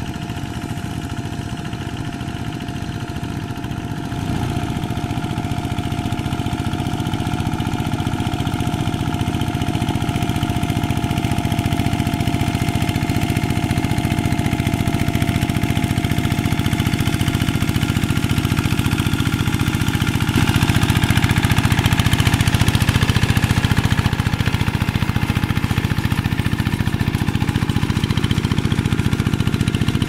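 Single-cylinder diesel engine of a two-wheel walking tractor running steadily under load while ploughing a flooded paddy on steel cage wheels. It gets louder about four seconds in and again about two-thirds of the way through.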